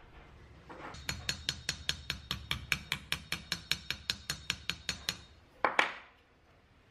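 Rapid light hammer taps on a small part held against a steel bench anvil, about six a second for some four seconds, each with a short metallic ring. Near the end, a brief louder clatter.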